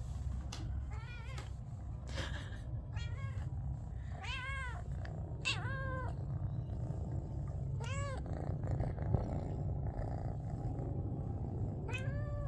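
Domestic cats meowing: about eight short meows, each rising then falling in pitch, scattered through the stretch over a steady low rumble.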